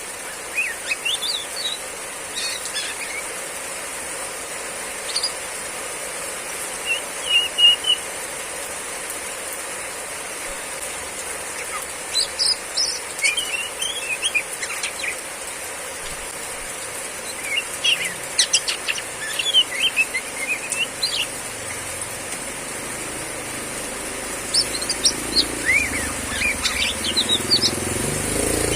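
Female oriental magpie-robin giving short 'riwik' chirps and whistled calls in bursts every few seconds, over a steady hiss of heavy rain.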